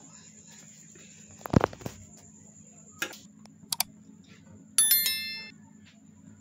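A loud low thump about one and a half seconds in. Then a click, a quick double click and a bright bell chime that rings and fades: the sound effect of a YouTube subscribe-button and notification-bell animation. A low steady hum runs underneath.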